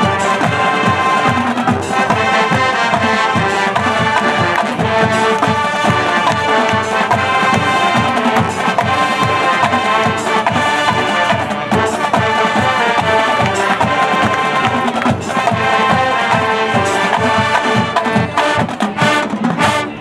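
Marching band playing: brass section over front-ensemble mallet percussion and a steady drum beat.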